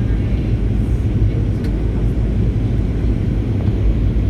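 Steady low rumble of airliner cabin noise, engine and airflow heard from inside the cabin of a GOL Boeing 737 in flight.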